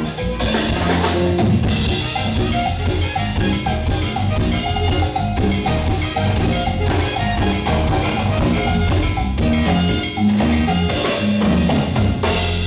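Live band playing an upbeat instrumental passage on drum kit and bass with other instruments, part of a sound check. It ends on a final hit near the end that rings on as a held chord.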